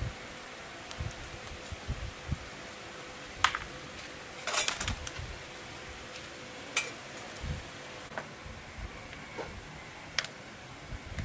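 Scattered light clicks and soft knocks of hands and a tool handling a Ryobi string trimmer's plastic engine housing and its throttle cable and wires, over a faint steady hum.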